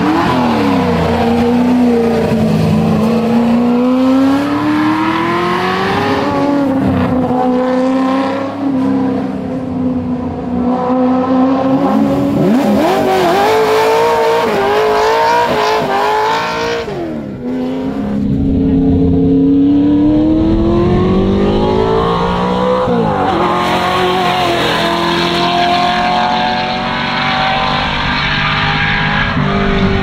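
Ford Shelby GT350 Mustang's V8 engine at full race effort. It revs hard, pitch climbing and dropping again and again through gear changes and lifts for corners.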